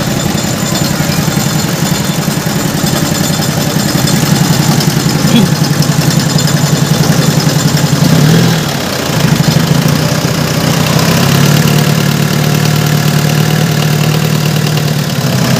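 Mitsubishi 4D56 four-cylinder diesel engine idling on its first run after a top overhaul, with a steady pulsing hum that sags briefly about eight seconds in and then recovers. The idle is set too low and is about to be adjusted.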